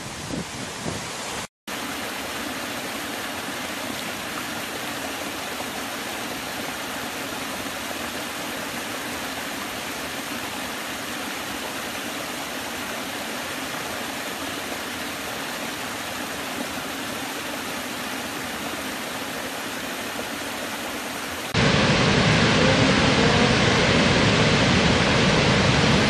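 Steady, even rush of water tumbling over a low stepped cascade in a forest stream, with a brief cut to silence about a second and a half in. Near the end it switches abruptly to the much louder, deeper roar of a large waterfall.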